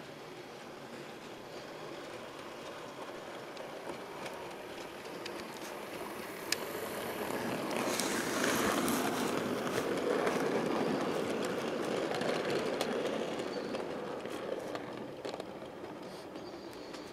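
A Bachmann OO gauge Class 37 model diesel locomotive hauling freight wagons past on the track. Its motor and wheels make a running rumble, with scattered clicks as the wheels cross rail joints and points. The sound builds as it approaches, is loudest as it passes about 8 to 12 seconds in, then eases as the wagons roll by.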